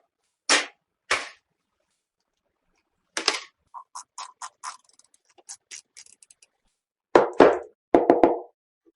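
Computer parts being handled during a PC build: two sharp knocks in the first second and a half, a run of small light clicks, then heavier knocks and a short clatter near the end.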